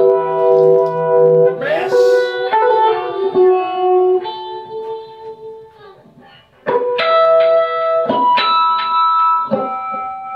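Seven-string guitar chords struck and left to ring, with notes sliding between chords about two seconds in. After a brief lull, three more chords are struck about a second and a half apart.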